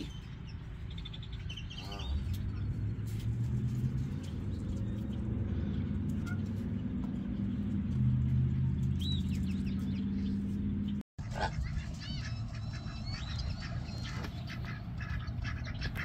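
Ducks and geese calling now and then, with a short run of quacking calls about two seconds in, and small songbirds chirping, mostly in the second half, over a steady low rumble. The sound cuts out for an instant about eleven seconds in.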